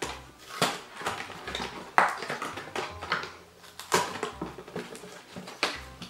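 Cardboard box of Kinder Surprise eggs being prised open by hand: rustling of the card with sharp snaps and clicks as the flaps give way, the loudest about two seconds and four seconds in.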